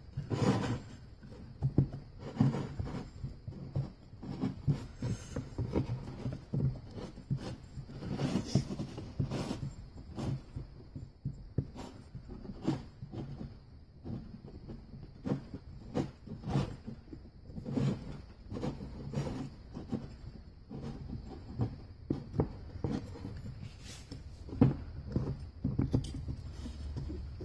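Irregular light clicks, taps and scrapes of a small screwdriver and the metal parts of a Hydra-Matic front clutch unit being worked together on a metal bench, as the piston seal is guided into its bore.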